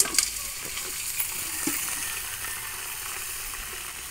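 Chopped meat dumped into a pot of hot oil, hitting with a sudden splash and then sizzling as it fries, a steady hiss that eases slightly.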